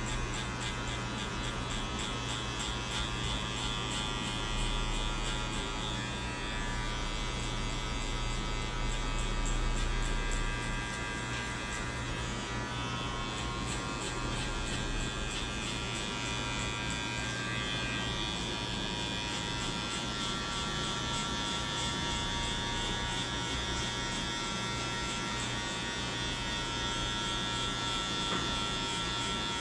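Electric hair clippers buzzing steadily as they cut a fade.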